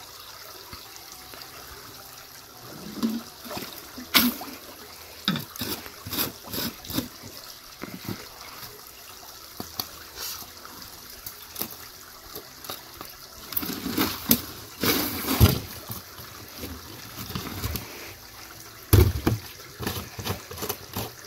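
Stream water trickling and gurgling into yellow plastic jerry cans, broken by irregular knocks and clatters as the hollow cans and their caps are handled at the water's edge, the loudest thud near the end.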